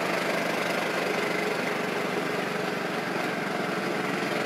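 A small engine running at a steady speed, heard from on board the small vehicle it drives as it rides along the track.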